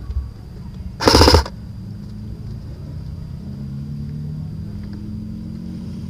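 A short burst of airsoft rifle fire, about half a second long, about a second in; a low steady hum runs on after it.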